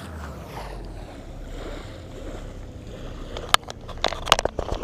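A steady low rumble, then from about three and a half seconds a quick run of sharp clicks and knocks, which are the loudest sounds.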